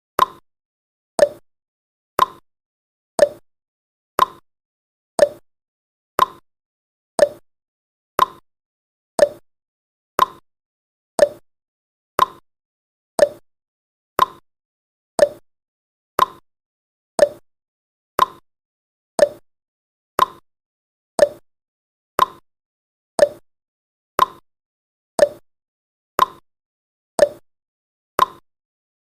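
Countdown timer's tick sound effect: a short, sharp pop once a second, each one dying away quickly, with silence between.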